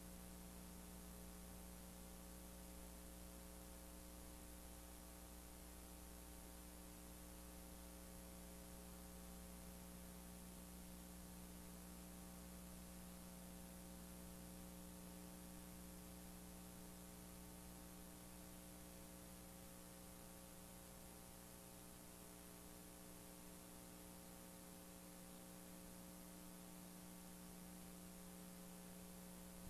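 Faint, steady mains hum with many overtones over a constant hiss, the line noise of a blank stretch of videotape with no programme sound. It cuts off abruptly at the end.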